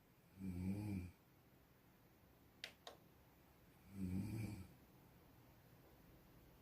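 Snoring: two low-pitched snores, each under a second long, about three and a half seconds apart. Two faint clicks come between them.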